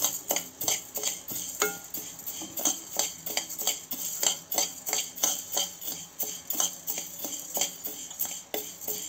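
Metal spoon stirring dry chana dal, urad dal and rice as they dry-roast in a kadai, a repeated scrape-and-rattle of grains against the pan at about three strokes a second.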